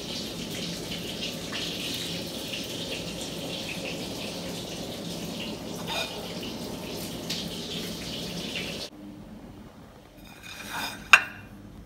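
Breaded pork cutlets frying in lard in a pan, a steady crackling sizzle that stops abruptly about nine seconds in. A single sharp click follows near the end.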